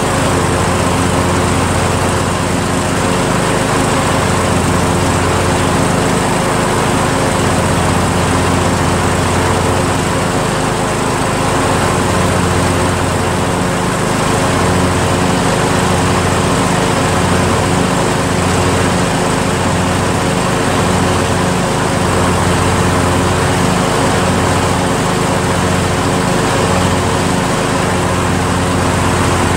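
A John Deere L100 lawn tractor's Briggs & Stratton engine running steadily. In the second half its low note throbs regularly about once a second.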